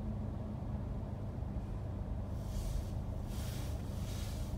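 Low, steady rumble of a car standing in city traffic, heard from inside the cabin, with three short hisses in the last two seconds.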